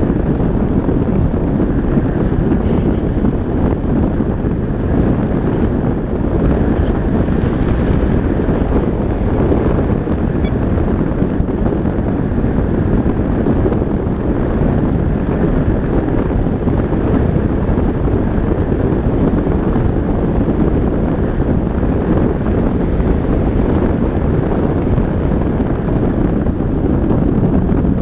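Steady rush of air streaming past the onboard camera of a Reichard Blizzard glider in flight: wind noise buffeting the microphone, with no engine sound.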